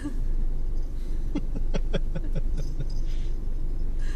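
Someone chuckling in a short run of quick bursts inside a stopped car, about a second and a half in, over the steady low hum of the car's idling engine.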